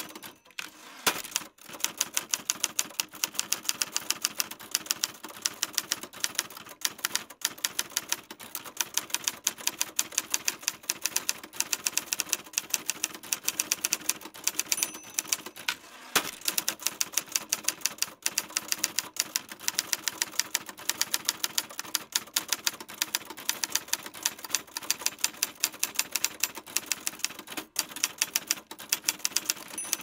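Typewriter being typed on: fast, sharp keystrokes, several a second, with a few brief pauses between runs.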